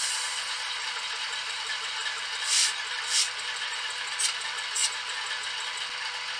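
Zimo sound decoder in a TT-scale BR 131 model diesel locomotive playing its engine sound through the small onboard loudspeaker, a steady running note with four short hisses of air, in two pairs.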